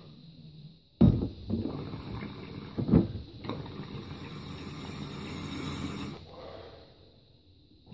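Water bubbling and gurgling through a glass water pipe's inline and turbine percolators as smoke is drawn through it. It starts suddenly about a second in, with a loud surge about three seconds in, and dies away near the end.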